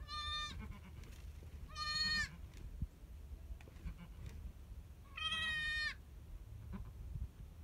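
Newborn Savanna goat kid bleating: three short, high-pitched bleats, each about half a second long, with the pitch dropping slightly at the end of each.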